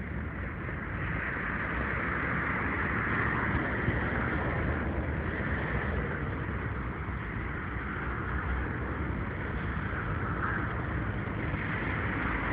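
Steady city street traffic: cars passing on a wide road as a continuous hiss over a low rumble, swelling as vehicles go by about a second in and again near the end.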